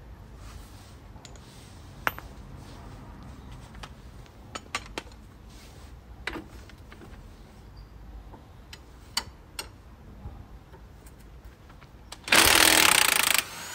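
Scattered metallic clicks from hand tools on the shock absorber bolt, then near the end a loud burst of a little over a second from a power tool spinning off the shock absorber's bottom nut.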